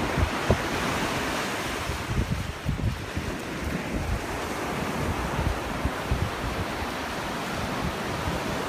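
Ocean surf breaking and washing up a sandy beach, with gusty wind buffeting the microphone.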